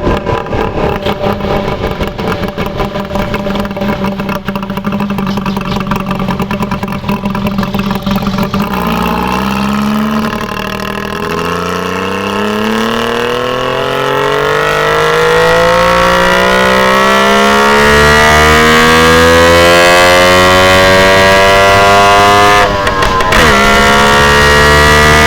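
Motorcycle engine with an uneven, pulsing beat for about nine seconds, then pulling hard with its pitch climbing steadily for over ten seconds. Near the end the revs drop sharply, as at a gear change, and climb again.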